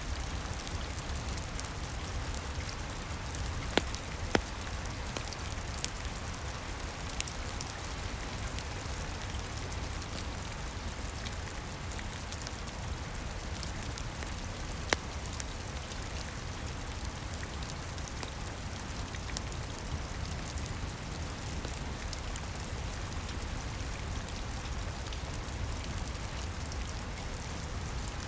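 Steady rain with a low rumble underneath, and a few sharp pops of a crackling wood fire, the loudest twice about four seconds in and once in the middle.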